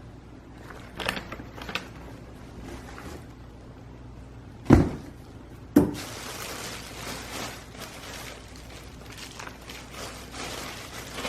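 Unboxing handling: a few light clicks, then two loud knocks about a second apart as hard items are set down or moved, followed by steady rustling.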